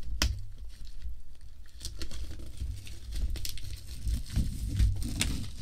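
Plastic shrink-wrap being peeled and torn off a laptop box, with a few sharp crackles and dull handling bumps.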